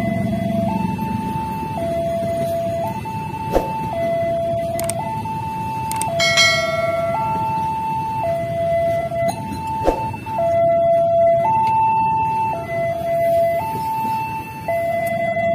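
Level-crossing warning alarm sounding a two-tone signal, swapping between a higher and a lower tone about once a second, over the steady rumble of a passenger train rolling past on the rails. A couple of sharp clacks and a short higher sound about six seconds in.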